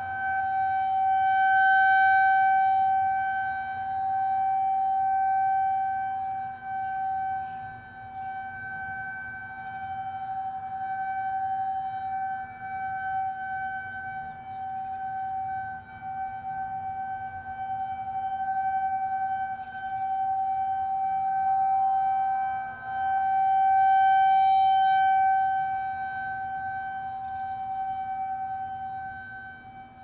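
Federal Signal 2001-130 electromechanical outdoor warning siren sounding a steady single tone, sounded as a severe thunderstorm alert. The loudness swells and fades every few seconds as it sounds.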